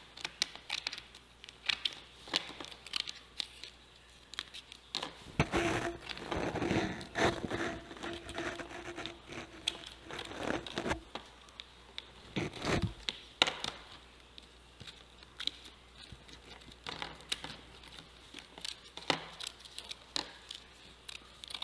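Clear plastic film crinkling and being snipped with scissors as the excess is trimmed, in a run of short crackles, with a few louder bursts of handling noise in the middle.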